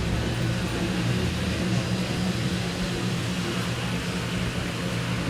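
Steady hum and hiss of a car heard from inside the cabin.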